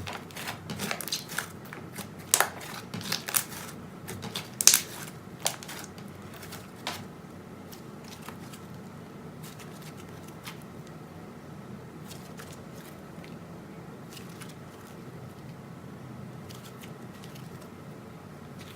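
Slime being squeezed and worked by hand, giving sharp crackling pops and clicks for the first several seconds, then only sparse, fainter clicks and squishes.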